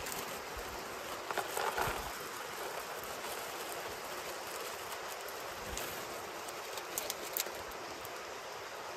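Steady rushing of a nearby stream, with a plastic bag of dry dog food rustling and kibble poured into a small bowl: a short cluster of rustles about one and a half seconds in and a few light clicks near the end.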